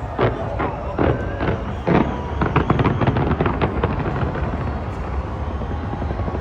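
Fireworks exploding in a string of sharp bangs, with a fast crackling volley of many reports in the middle.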